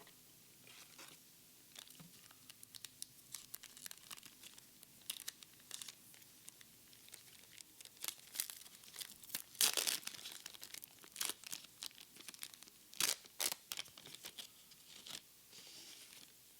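Foil Pokémon booster pack wrapper crinkling and being torn open by hand, in a run of sharp, crisp rustles that are loudest about ten and thirteen seconds in.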